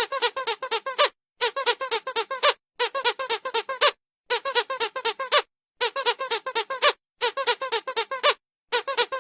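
Squeaky dog toy squeezed in quick runs: bursts of about seven fast squeaks lasting about a second each, with a short pause between bursts, repeating evenly.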